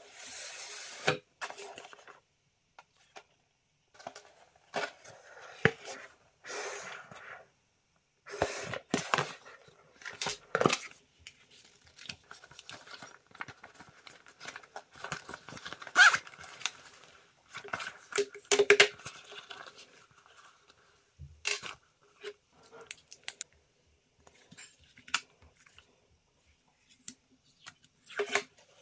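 Unboxing handling noise: cardboard packaging rustling, scraping and tearing in irregular bursts, with sharp clicks and taps as the carrying case and the Jabra Evolve2 65 wireless headset are handled.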